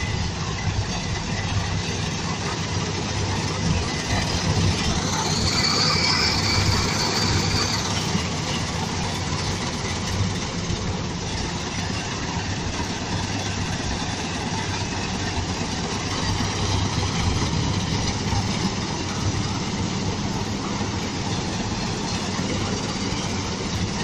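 Harvesting machine running steadily: a dense mechanical clatter over a low engine hum, with a high whine for about three seconds some five seconds in.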